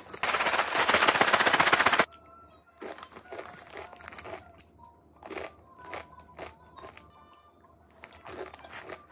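Loud crinkling of packaging for about two seconds, which then stops suddenly. After that, soft background music plays with scattered light clicks.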